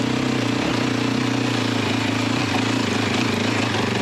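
Single-cylinder motorcycle engine running steadily at low, even revs, with a constant haze of wind and dirt-track noise under it.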